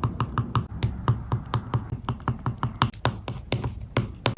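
Oil pastel dabbed on paper in short, quick strokes: a steady run of light taps, about four or five a second.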